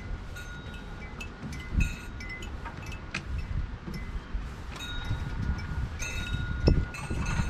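Wind chimes ringing, several clear tones each held for a second or two, over a low wind rumble on the microphone.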